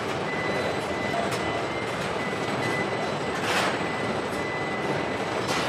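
Steady running noise of car-factory machinery on an assembly line, with a faint steady whine and a short hiss of air about three and a half seconds in and another near the end.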